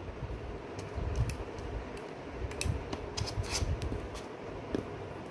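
Small plastic clicks and handling noise of a Canon M50 Mark II's battery being taken out, turned round and pushed back into its compartment to latch, after it would not lock the wrong way in. Several scattered ticks and rattles.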